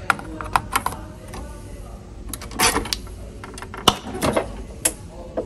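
Hard plastic clicks and clatter from a Keurig single-serve coffee brewer as a K-cup pod is set into its holder and the lid is pushed shut, with the sharpest snap about four seconds in.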